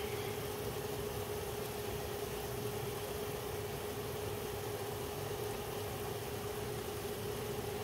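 Steady mechanical hum of a kitchen appliance, with one constant mid-pitched tone over an even whirring noise.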